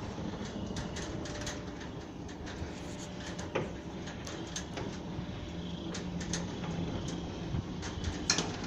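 Outdoor ambience: a steady low rumble with scattered light clicks and knocks, and one sharper click near the end.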